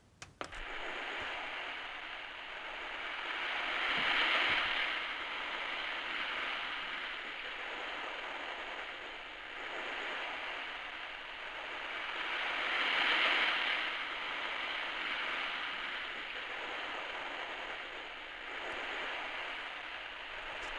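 The Ocean Waves sound of a Soothing Sounds 20 clock radio, played through its small built-in speaker: a steady hiss of surf that swells and falls back every four to five seconds.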